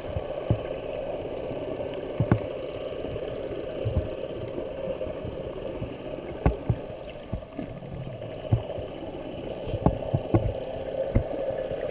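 Spinner dolphins whistling underwater: about six high whistles, each dipping in pitch and rising again, roughly every two seconds, over a steady low hum and scattered clicks.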